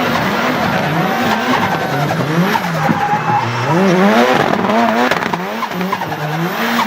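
Turbocharged Nissan 200SX engine revving up and down over and over, its pitch rising and falling about once a second, with tyres squealing and skidding as the car drifts.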